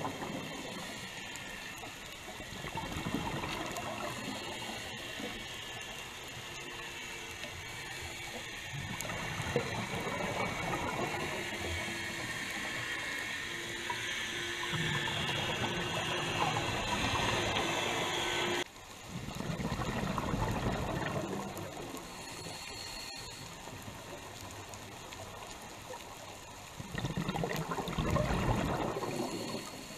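Underwater sound through a camera housing on a coral reef: a steady crackling hiss. Louder bubbling rushes come four times, several seconds apart, which fits a scuba diver's exhaled bubbles. A faint steady hum runs through the middle.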